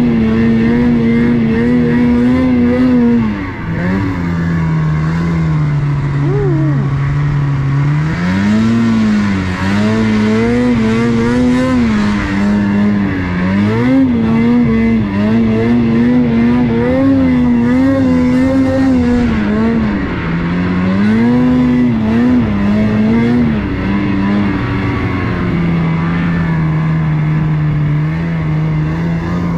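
Ski-Doo 850 Summit snowmobile's two-stroke twin engine running under changing throttle. It holds a high note, drops to a lower note about three seconds in, then rises and falls repeatedly with the throttle, and settles back to a lower steady note near the end.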